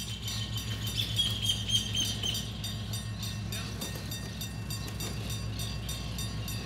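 Diesel freight locomotive running as it approaches out of view, a steady low rumbling throb. A thin high steady tone fades out about two and a half seconds in.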